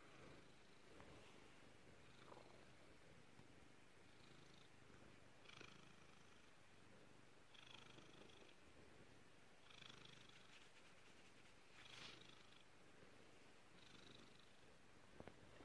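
Domestic cat purring faintly and steadily, the purr swelling and fading about every two seconds.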